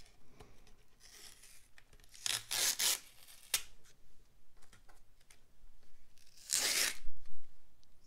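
Masking tape being peeled off the edges of a watercolour painting on paper, in several short ripping pulls, the longest and loudest about a second before the end.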